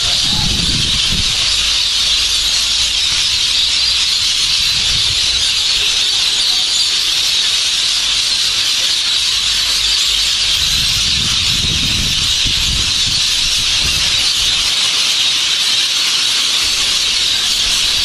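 A dense, steady insect chorus: a loud, unbroken high buzzing hiss. Brief low rumbles come in near the start, around the middle and again near the end.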